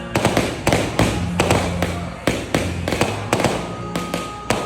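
Fireworks bursting in rapid succession: sharp bangs, about three to four a second, each with a short trailing crackle or echo.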